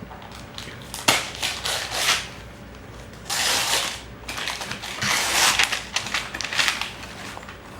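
Paper crinkling and tearing as a small gift box is unwrapped: many short crackles, with two longer rustling tears about three and five seconds in.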